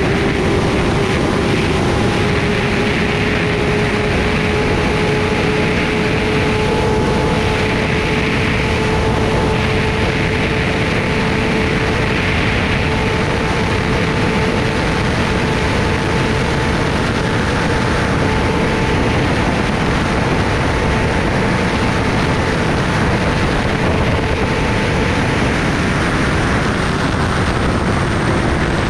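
Kawasaki Ninja ZX-10R inline-four engine running at a steady highway cruise under heavy wind rush and tyre noise, its pitch easing down near the end as the throttle is rolled off.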